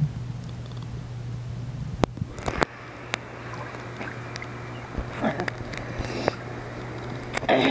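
Muffled water sloshing and gurgling in a swimming pool, heard with the camera under the water, over a steady low hum. Sharp clicks come at times, and a short, louder muffled burst comes near the end.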